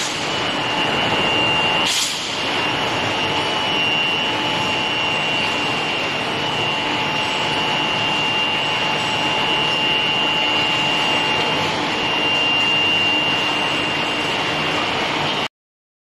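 Induction forging furnace running: a steady high-pitched whine over loud machine noise, with one sharp knock about two seconds in. The sound cuts off suddenly near the end.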